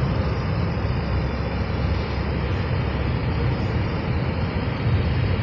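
Steady road and engine noise of a car driving, heard from inside the cabin: a constant low rumble with a hiss above it.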